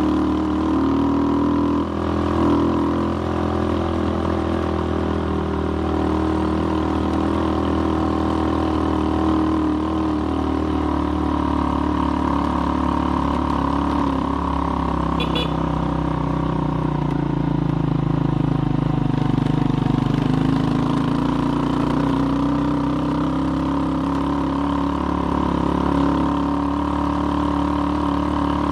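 Skygo Boss 150 motorcycle's 150 cc single-cylinder engine pulling under load on a hill climb through an aftermarket bottle pipe exhaust, with a Nibbi PE26 carburettor and pod filter. The engine note holds fairly steady, then sags and picks back up about two-thirds of the way through.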